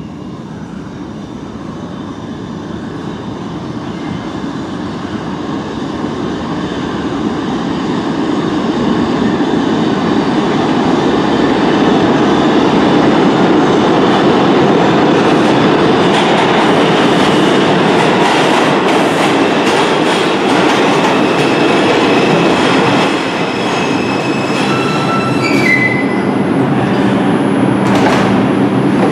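Bombardier R142 subway train on the local track, its rumble and wheel noise building over about ten seconds and then holding loud. Near the end the propulsion gives a whine that steps up in pitch.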